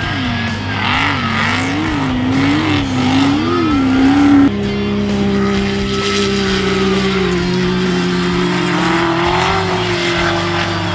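Off-road race car engine, its revs rising and falling in quick repeated swings about once a second, then after an abrupt cut a steadier engine note that dips and climbs slowly. Music plays underneath.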